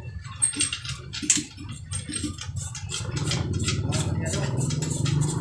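Light clicks and rattles of hands working the spark plug cap and cable on a Bajaj RE auto-rickshaw engine. Under them an engine hums, growing louder about three seconds in.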